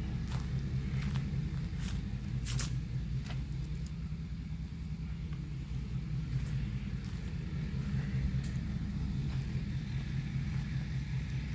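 Steady low mechanical rumble of running machinery, with a few irregular sharp clicks over it.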